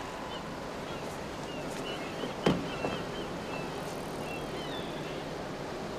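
Outdoor ambience: a steady background hiss with a string of short high chirps, and one sharp knock about two and a half seconds in.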